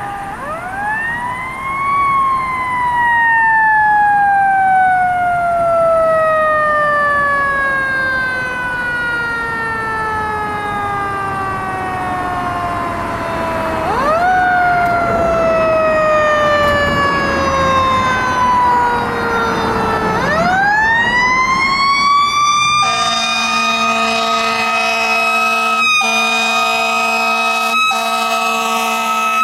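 A fire engine's mechanical siren winds up to a high wail, then coasts slowly down in pitch, and is wound up again twice. In the last few seconds the truck's air horns join in with a steady blast, broken briefly twice.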